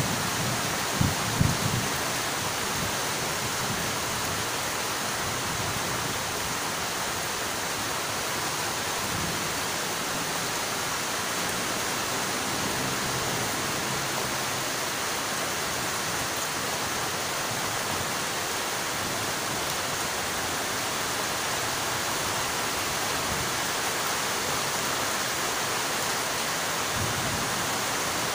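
Heavy rain falling in a steady hiss. About a second in there are two brief low thumps.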